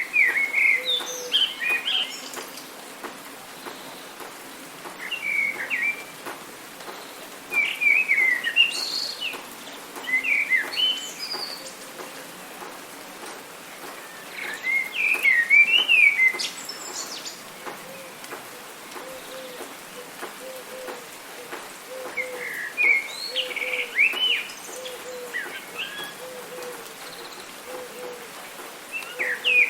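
Songbirds singing in bursts of quick, warbling chirped phrases every few seconds, with a lower short note repeating underneath, over a steady hiss of rain.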